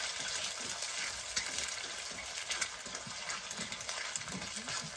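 Eggs sizzling in a metal frying pan while a metal spoon stirs and scrapes them: a steady frying hiss with many small clicks and scrapes.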